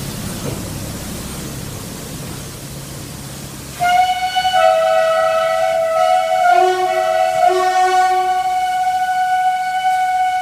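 Railcar rumbling along the track, then about four seconds in a loud train horn sounds one long blast of several notes held together, some of them dropping in and out, lasting about six seconds and stopping near the end.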